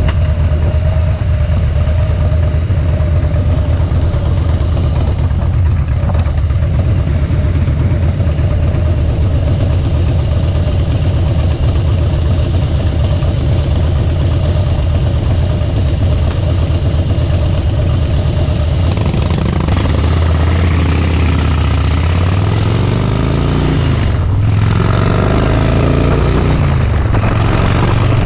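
Harley-Davidson Softail Deluxe's air-cooled V-twin running through Vance & Hines Straight Shots slip-on exhausts, holding a steady speed. About two-thirds of the way in it accelerates, the pitch rising, dropping at a gear change, rising again and levelling off.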